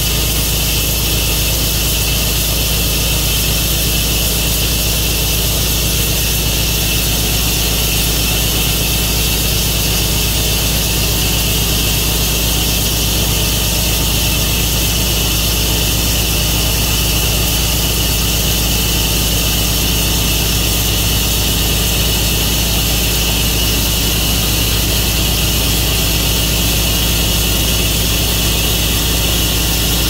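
Tru Cut sawmill running steadily as it saws through a catalpa log, with a constant engine drone under the cutting noise and no pauses.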